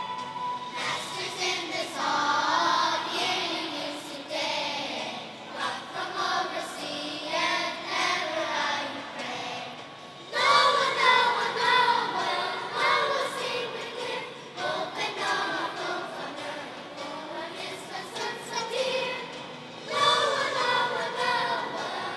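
Children's choir singing together in phrases, with a louder entry about halfway through.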